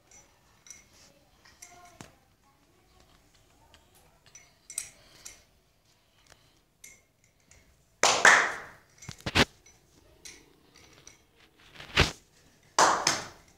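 Newspaper being handled and folded: soft rustles and small crinkles, then two loud bursts of paper rustling past the middle and near the end, with a couple of sharp snaps between them.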